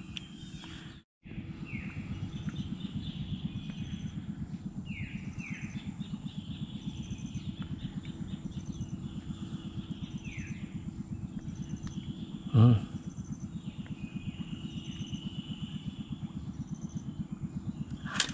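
Outdoor ambience by still water: a low, evenly pulsing hum under several short descending bird calls and faint high ticks repeating about once a second. A brief vocal sound comes about twelve seconds in.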